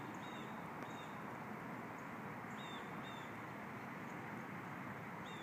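A small bird chirping: short high notes, often in pairs, every second or two, over a steady outdoor background hum.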